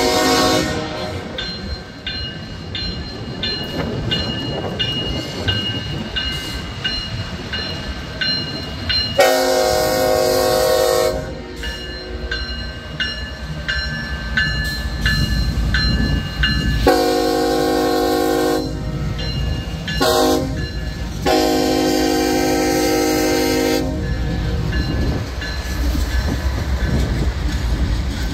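Diesel freight locomotive's horn sounding the grade-crossing signal: a long blast, then another long one, a short one and a final long one, over a bell ringing steadily. The locomotives' engines and wheels rumble louder as they pass.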